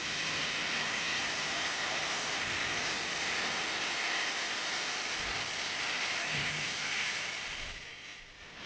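Jet engines of a Boeing 737-800 (CFM56-7B turbofans) running steadily: an even rushing hiss with a higher whine-like band, dipping briefly near the end before coming back louder.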